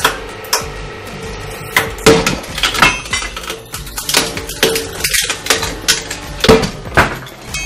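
A ball being crushed in a hydraulic press: its hard shell cracks and snaps in about ten sharp, irregular breaks as the fragments give way under the ram, over a steady hum.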